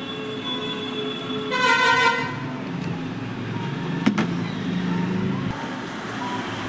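A vehicle horn honks once, briefly, about a second and a half in, over steady background noise; a sharp click follows about four seconds in.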